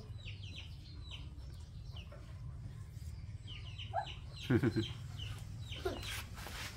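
Chickens clucking, with short, high, falling peeps repeating throughout and a louder call about four and a half seconds in, over a low steady rumble.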